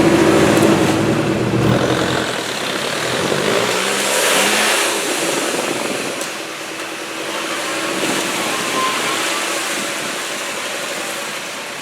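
Off-road 4x4 engine running under load, loud for the first two seconds and then fading, with a rush of noise about four seconds in.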